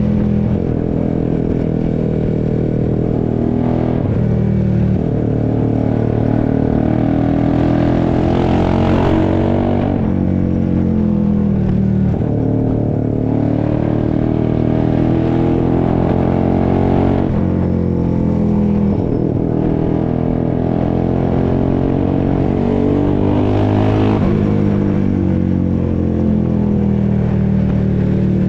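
Honda CBX 250 Twister's single-cylinder four-stroke engine, bored out to 79 mm and fitted with a tuned exhaust, running with a deep, strong exhaust note. The revs climb and fall several times over a few seconds each.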